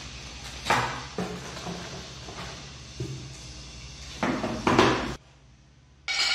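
Unpacking noises: a small plastic parts bag and cardboard box rustling in the hands, with several light knocks as things are set down on the workbench. The loudest rustle and clatter comes just before five seconds in.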